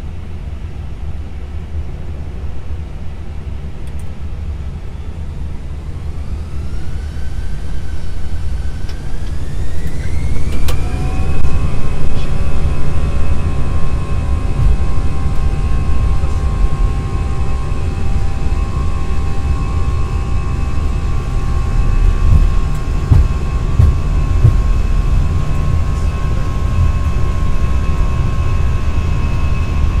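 Airbus A320's twin jet engines spooling up for takeoff, heard from the cockpit: a whine rising in pitch from about six seconds in, then holding as a steady high tone from about eleven seconds at takeoff thrust. Beneath it a low rumble from the wheels rolling down the runway grows louder as the aircraft speeds up.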